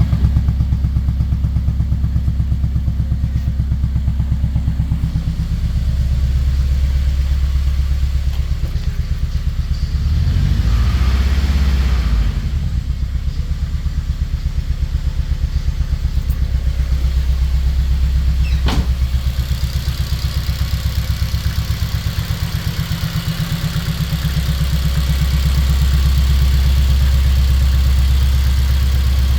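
Engine idling with a fast, even pulsing beat and one brief rev that rises and falls about ten seconds in. A single sharp click comes a little past halfway. The owner is unsure whether this is a misfire or a damaged engine.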